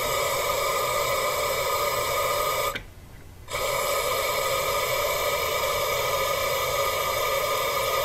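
Aerosol intake and throttle body cleaner spraying through its straw into the number 4 cylinder's spark plug hole: a steady hiss that stops for under a second about three seconds in, then carries on.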